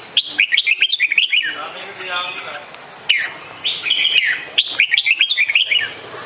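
Red-whiskered bulbul singing: rapid runs of short, sliding chirps, in two phrases with a gap of about a second and a half between them.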